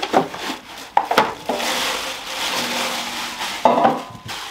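Packaging being unpacked from an air fryer drawer: a small cardboard box knocking and tapping, then about two seconds of rustling plastic wrap, with another knock near the end.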